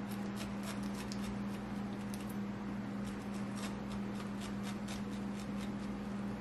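Chef's knife scoring through the flesh of a halved pineapple: a run of small, irregular crisp cuts and scrapes, over a steady low hum.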